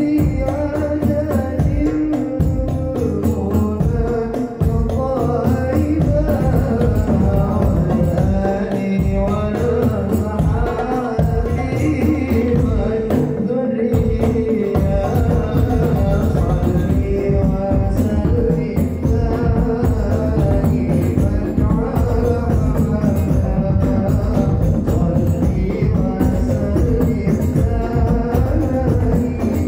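Hadrah ensemble playing sholawat: hand-struck frame drums (rebana) and a deep bass drum keeping a steady, busy beat under a sung melody.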